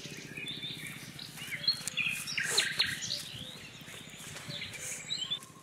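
Small electric motor of a homemade foam toy boat buzzing steadily as its propeller drives it across the water, with birds chirping over it.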